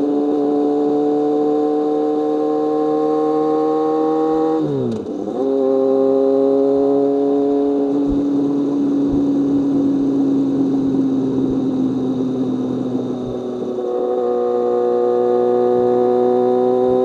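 BMW K1200R's inline-four engine and exhaust under way, pulling with its pitch climbing slowly. About five seconds in the pitch drops sharply at a gear change and the engine pulls on, with another short dip in level just before fourteen seconds.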